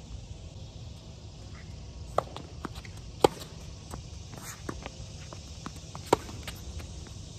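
Tennis ball struck by rackets during a rally on a hard court: sharp pops about two seconds in, loudest about three seconds in, and again about six seconds in, with fainter ball bounces and footsteps between.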